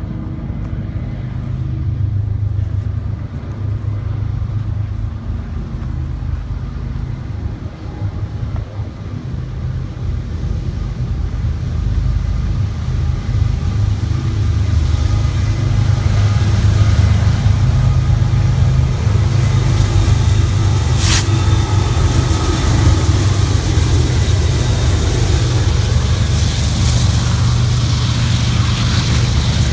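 BNSF intermodal freight train passing: a heavy low rumble throughout, with the rolling hiss and clatter of steel wheels on rails growing louder in the second half as the trailer-carrying flatcars go by close. One sharp clack about two-thirds of the way through.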